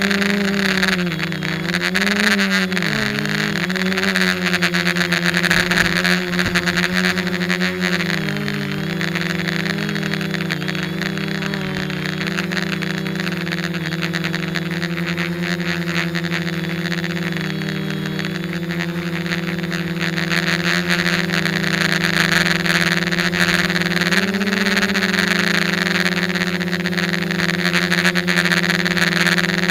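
F450 quadcopter's electric motors and propellers droning in flight: a steady hum with a rushing hiss of prop wash. Its pitch dips and rises a few times in the first few seconds and again around eight seconds in, then steps up a little about twenty-four seconds in as the motor speeds change.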